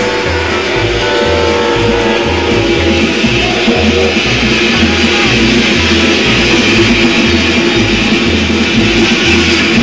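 Background music: guitar with a bass line that changes notes in an even rhythm about twice a second.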